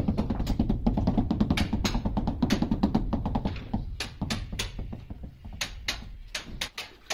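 Rubber mallet tapping ceramic wall tiles in quick succession to bed them into the mortar, the taps thinning out after about four seconds, with background music.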